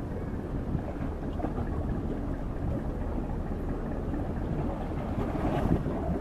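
Wind buffeting the microphone: a continuous low, uneven rumble with small gusts that swell near the end.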